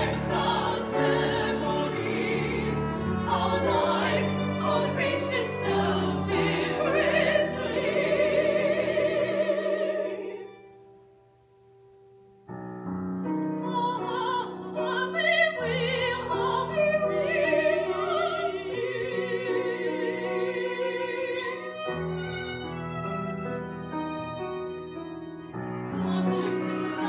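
Women's voices singing in operatic style with strong vibrato over piano accompaniment. The music breaks off about ten seconds in and starts again abruptly two seconds later.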